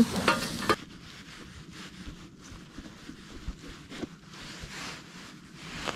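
Faint rustling and soft dabbing of a paper towel as perch fillets are pressed dry on a plastic cutting board, after a brief voice at the very start.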